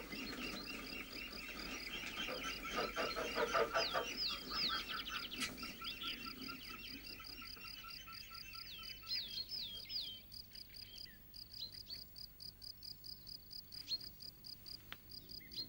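Meadow ambience: crickets chirping steadily at about three or four chirps a second, with birds calling over them. The bird calls are a busy chatter in the first few seconds and a few quick falling whistles about four and nine seconds in.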